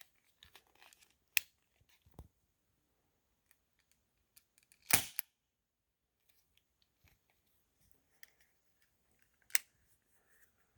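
A few sharp clicks and knocks in otherwise near-quiet surroundings, the loudest about halfway through, with single sharper clicks near the start and near the end; no bird call is heard.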